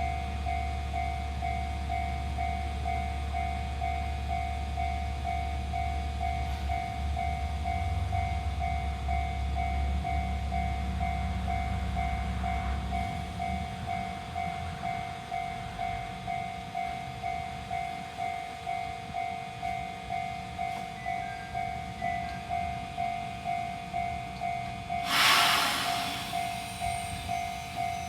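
Japanese level-crossing alarm bell with the Chichibu-type tone, dinging steadily in an even rhythm and sounding cracked and distorted. Under it a train rumbles, fading out about halfway through, and near the end there is a brief loud hiss.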